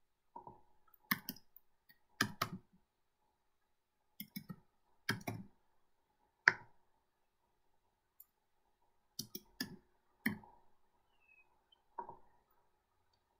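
Faint, sparse clicks of a computer keyboard and mouse while typing code, about a dozen single clicks spread out with irregular pauses.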